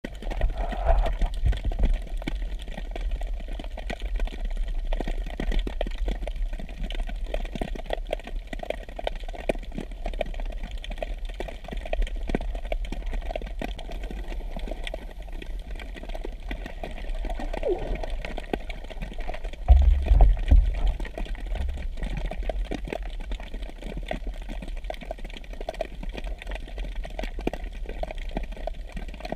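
Underwater ambience picked up by the diving camera: a steady low rumble with scattered crackling clicks, and a louder low burst about two-thirds of the way through.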